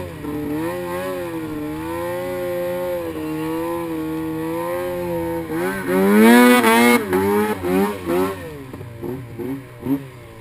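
2009 Arctic Cat M1000 snowmobile's two-stroke twin running at steady throttle, then revving hard about six seconds in with its pitch climbing, before falling back to short throttle blips as it slows near the end.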